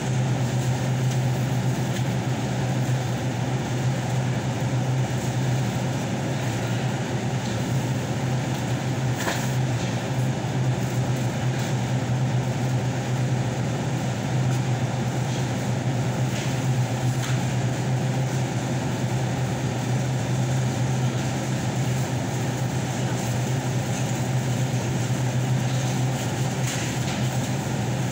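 Steady low hum and constant background noise of a supermarket interior, the kind of drone that ventilation and refrigeration give, unchanging throughout.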